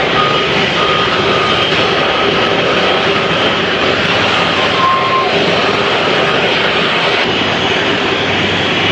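Jet airliner engines running, a loud steady rush of noise with faint high whining tones held within it.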